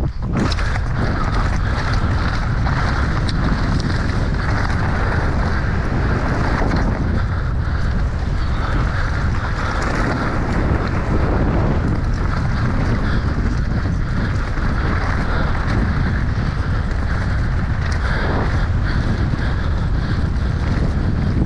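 Wind buffeting the microphone over the steady rush and rattle of a mountain bike descending a rough trail at speed.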